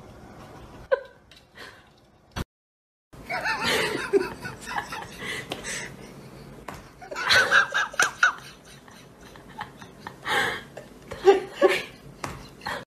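People laughing and giggling in bouts, with sharp slapping sounds of a hand patting a cat's back.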